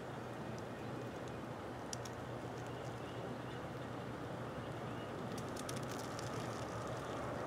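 Faint, steady low rumble of an approaching Amtrak passenger train still out of sight, growing a little louder near the end, with a few scattered light clicks.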